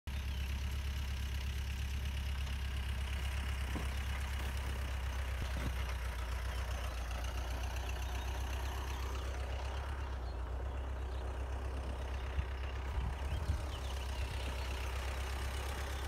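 Vineyard tractor engine running steadily as a low, even drone, with a few light knocks about three-quarters of the way through.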